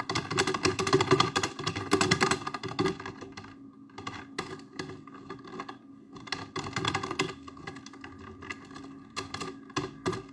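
Typing: bursts of rapid clicking taps, a dense run for the first few seconds, then shorter clusters about four, seven and ten seconds in.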